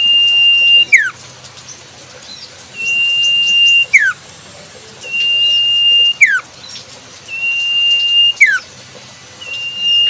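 Iora (cipoh sirtu) singing a repeated whistled call, about every two seconds. Each call is a steady high note held for about a second, which ends in a quick, louder slur downward.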